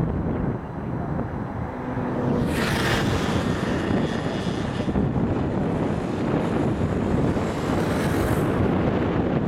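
Boeing 747 freighter on final approach with gear down, its four jet engines running as it closes in. A low rumble, and from about two and a half seconds in a high engine whine that fades and briefly returns near the end.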